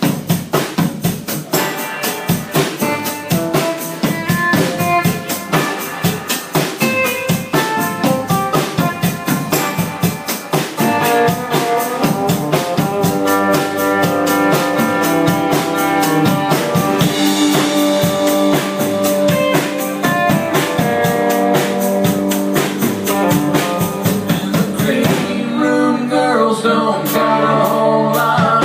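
Live rock band playing a song: a drum kit keeping a fast beat under electric guitar chords. The playing grows fuller and slightly louder about twelve seconds in.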